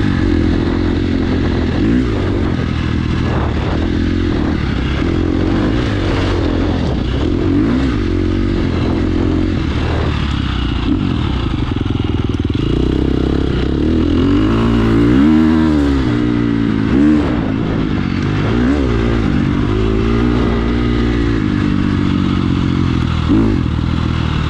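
2017 KTM 350 XC-F dirt bike's 350 cc four-stroke single-cylinder engine running under varying throttle as the bike is ridden, its pitch climbing and dropping over and over, most sharply about two thirds of the way in.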